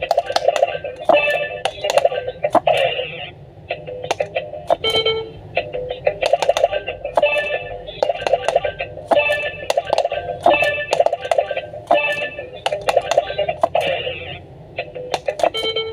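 Handheld electronic push-button game playing short electronic beeps and tone jingles in quick succession, with frequent sharp clicks of buttons being pressed fast.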